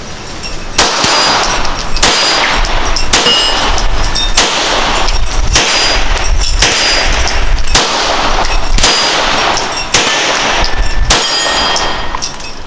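Springfield Armory 1911 Garrison 9mm pistol firing about ten shots in a slow, even string, roughly one a second, each shot sharp with a ringing tail.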